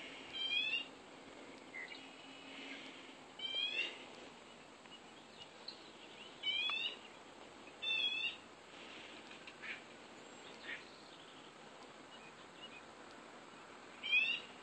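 Short, harsh bird calls, each with a quick upward slur, repeated five times at uneven intervals of a few seconds, with fainter calls in between.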